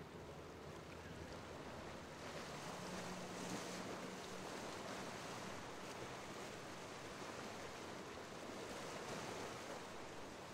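Surf and waves washing at an ocean inlet, with wind on the microphone; the wash swells louder about two seconds in. A faint, low, steady boat-engine drone sits under it in the first half.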